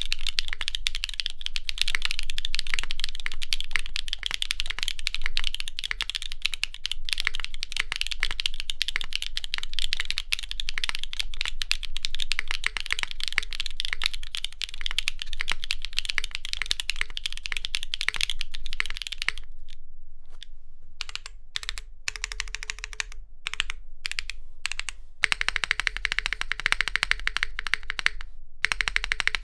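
Mechanical keyboard fitted with Kailh Calligraphy switches (liquid crystal polymer housings, melamine stems) being typed on quickly: dense, clacky keystrokes. About two-thirds through, the typing slows to scattered single presses with short gaps for a few seconds, then fast typing resumes.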